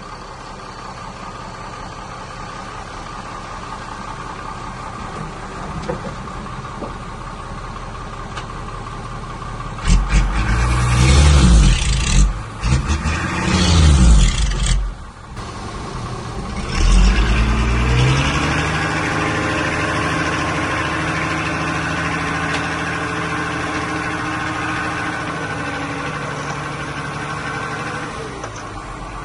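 Heavy-machinery diesel engine running steadily, then revved hard several times about ten to fifteen seconds in. It dips briefly, revs up again, and settles into a steady run whose pitch slowly sinks.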